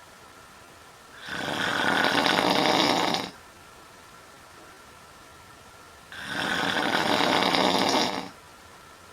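A woman snoring loudly in her sleep: two long, rough snores about five seconds apart, each lasting about two seconds.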